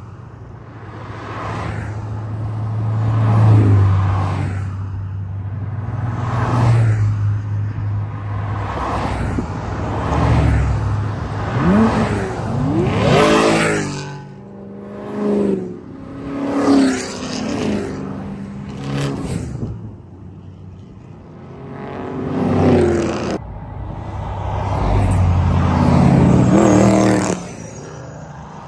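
Cars driving past close by one after another, each engine and exhaust swelling as it nears and fading as it goes. About twelve seconds in, one engine revs up sharply with a rising pitch.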